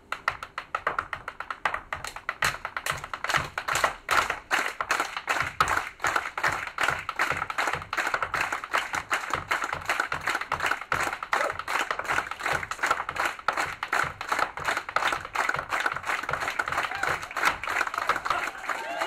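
Irish step dancer's hard shoes beating rapid taps and clicks on a stage floor with no music, the rhythm getting denser and louder after the first few seconds.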